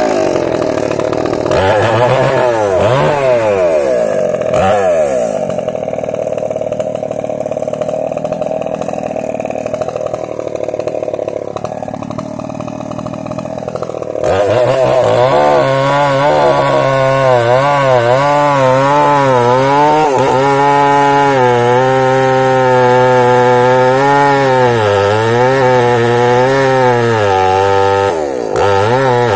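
Small two-stroke chainsaw running, revved up and down several times at first. About halfway through it gets louder as it cuts into a large tree trunk, its pitch wavering up and down under the load.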